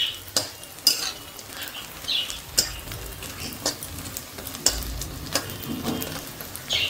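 Gima-shak (leafy green) fritters sizzling in hot oil in a stainless steel wok, with repeated sharp clicks and scrapes of a metal utensil against the pan.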